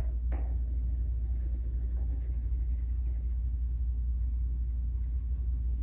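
Steady low rumble that also runs under the speech either side.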